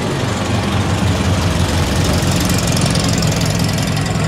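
Air-cooled flat-four engine of a classic Volkswagen Beetle driving past close by and pulling away, loudest about two to three seconds in.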